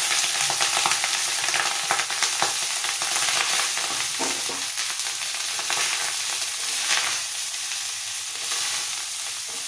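Soaked rice frying in hot oil in a kadai, sizzling steadily while a spatula stirs it, with scattered clicks and scrapes of the spatula against the pan.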